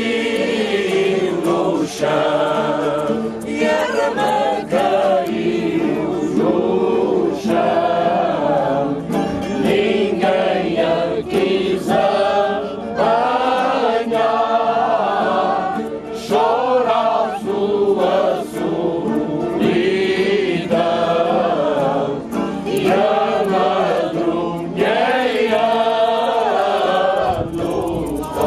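Group of voices singing cante alentejano, the slow Alentejo folk choral song, in long phrases that rise and fall, with brief breaks between phrases.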